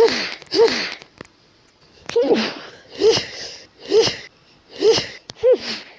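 A woman sneezing seven times in quick succession, roughly one sneeze a second: a rapid allergy sneezing fit from an itchy, tickly nose.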